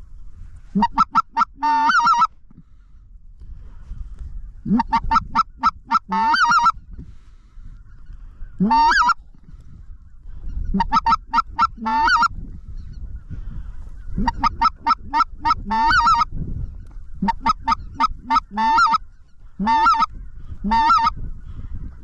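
Specklebelly (white-fronted) goose calling: seven loud bursts of rapid, high yelping notes, some starting with a quick upward glide, every two to three seconds. Underneath runs a steady low rumble of strong wind on the microphone.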